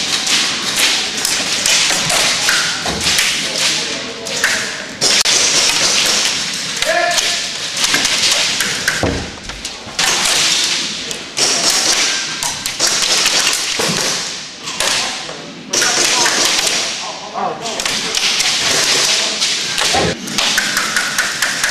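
Airsoft guns firing rapid strings of shots through a doorway, with BBs cracking against plywood walls: a constant dense clatter of shots and hits.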